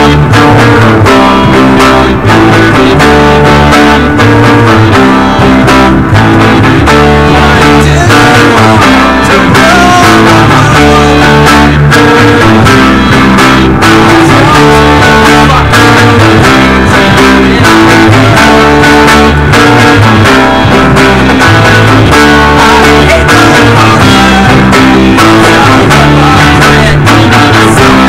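Rock band rehearsing, loud: electric guitars and an acoustic guitar playing together in a full, unbroken passage.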